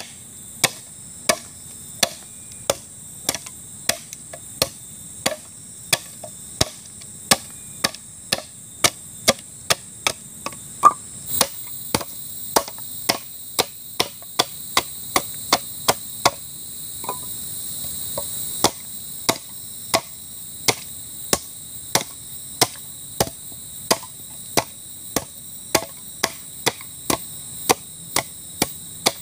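Machete blade chopping the end of a stake to a point, sharp blows at about one and a half a second, the stake resting on a green bamboo log. Insects buzz steadily behind, louder for several seconds in the middle.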